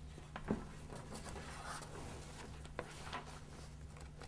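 Faint rustling and a few light taps of paper sheets being handled as one printed page is swapped for another, over a steady low hum.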